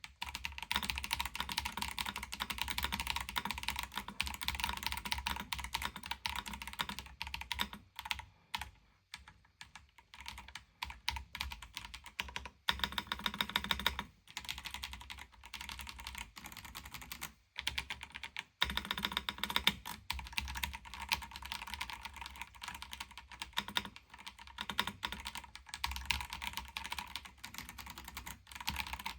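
Typing on an Akko 5075B Plus mechanical keyboard with yellow switches: a fast, continuous clatter of keystrokes, thinning out for a couple of seconds about a third of the way in and stopping briefly a little past halfway.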